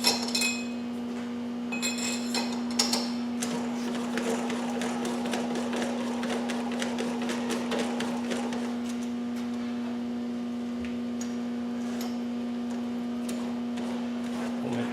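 A machine-shop machine tool's motor humming steadily, with sharp metal-on-metal clinks in the first few seconds and a stretch of rapid ticking and rattling that dies away about halfway through, leaving the plain hum.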